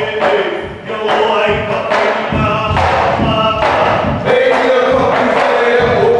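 Hawaiian hula chant sung by a group of voices, with a drum struck in beats about one or two a second.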